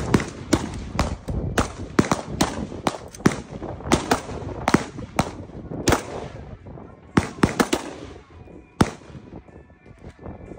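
Gunfire at a shooting range: sharp shots in quick, irregular succession, thinning to a few scattered shots after about six seconds.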